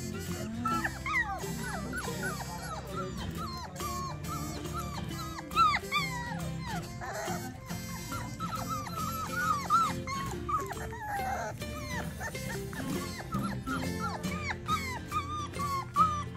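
Four-week-old standard Bernedoodle puppies whimpering and yipping: many short, high calls that fall in pitch, one after another and overlapping, over background music.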